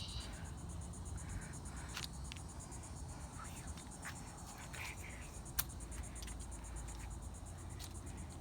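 Insects chirping in a fast, even pulse over a steady low rumble, with a few sharp clicks, the loudest about five and a half seconds in.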